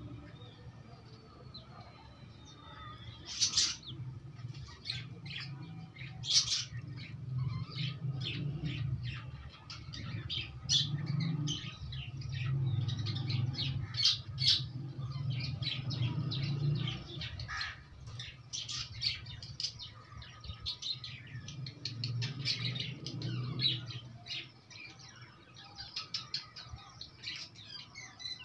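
Young chickens pecking feed off a concrete floor: many quick, irregular beak taps on the hard surface, with bird chirps.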